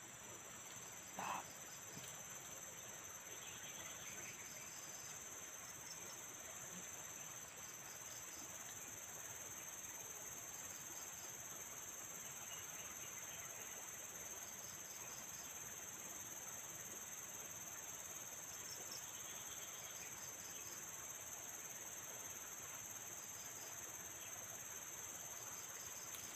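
Steady high-pitched insect chorus with short chirping trills repeating every second or two. A brief, slightly louder sound comes about a second in.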